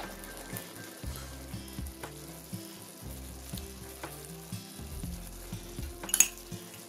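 A pan of lentils with bacon simmering in oil and stock, bubbling and sizzling steadily. A sharp clatter about six seconds in.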